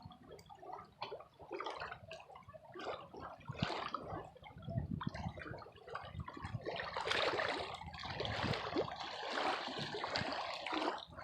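River water gurgling and splashing in an uneven rush, louder from about halfway through.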